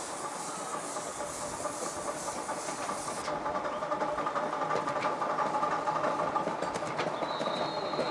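Miniature steam locomotive drifting toward the listener. Steam hisses from its cylinder drain cocks and cuts off abruptly about three seconds in, while its running and the clicking of its wheels on the track grow steadily louder as it nears.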